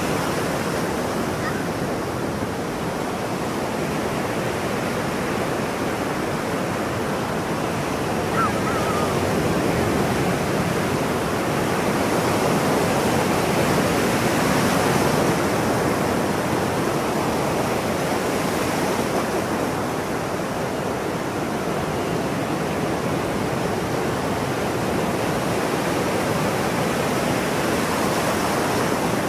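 Ocean surf washing in continuously, swelling to its loudest around the middle, with one faint short seagull call about eight seconds in.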